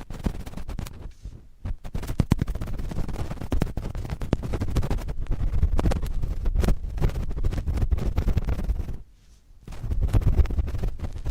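Cotton swabs scratching and rubbing directly on a microphone: a dense run of irregular scratchy strokes, heaviest in the low end, with a brief pause about nine seconds in.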